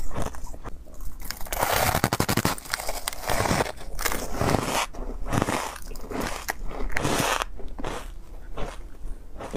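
Biting and chewing a block of refrozen ice coated in matcha powder: dense, crackling crunches, with quieter chewing crunches toward the end.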